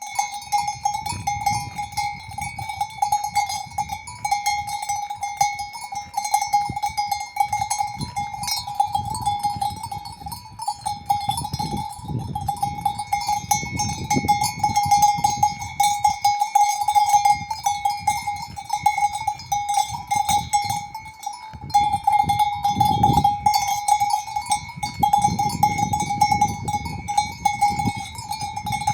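Cowbells on grazing cows clanking continually, several bells overlapping into a steady ringing. A low rumble swells and fades underneath.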